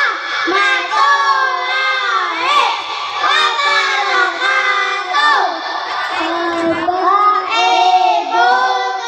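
A group of young boys reciting short Quran surahs in unison into handheld microphones: a loud, continuous chanted recitation with gliding, melodic phrases.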